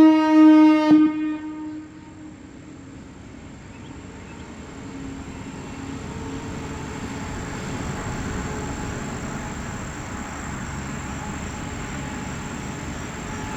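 High-pitched Whelen WPS-4004 electronic siren sounding its steady alert tone, very loud, cutting off about a second in as the alert ends. After it a lower, steady noise swells over a few seconds and holds.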